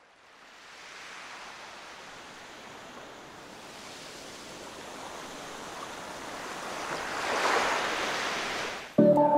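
Shallow surf washing up a sandy beach: a hiss of swash that fades in and builds to a louder surge of foaming water about three quarters of the way in. Music starts just before the end.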